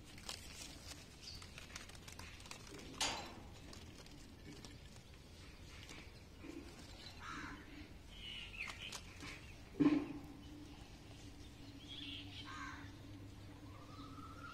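Faint bird chirps scattered through the background, with a sharp knock about three seconds in and a louder knock near ten seconds, after which a low steady hum sets in.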